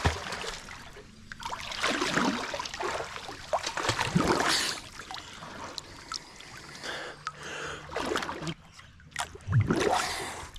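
Water splashing and sloshing in uneven surges around people wading, as a hand-fisher grapples a catfish in its underwater hole.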